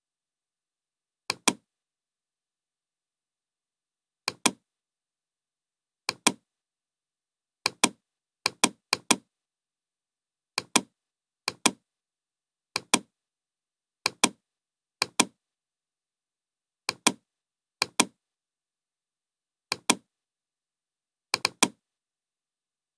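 Computer mouse button clicking about fifteen times at irregular intervals, each click a quick double snap of press and release.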